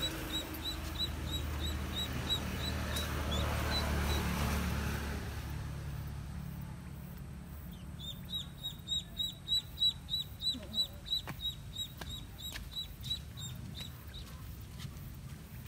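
A live duckling used as fishing bait, peeping: a run of short high peeps, about three a second, faint at first and louder for several seconds from about halfway through.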